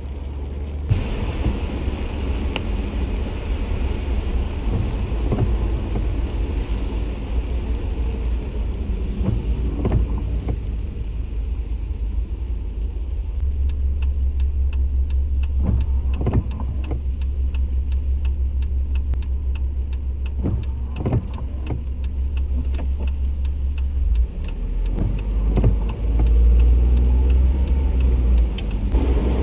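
Steady low rumble of a car, with scattered short clicks and knocks over it.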